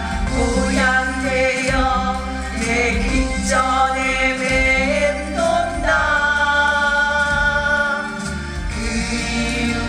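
Music with singing, choir-like voices holding long notes over a steady low accompaniment.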